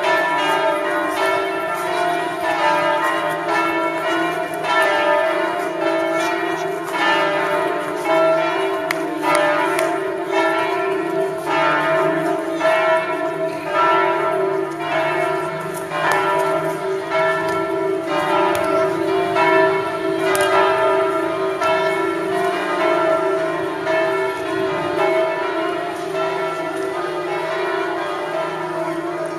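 Several church bells ringing together in a continuous peal, a fresh strike coming a little more often than once a second, their tones hanging on between strikes.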